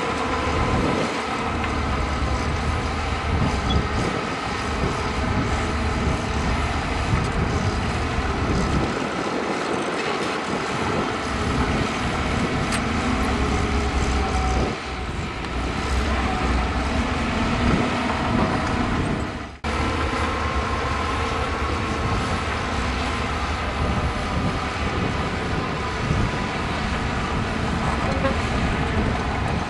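Heavy diesel earthmoving machinery running steadily, with a sudden brief dropout about two-thirds of the way through.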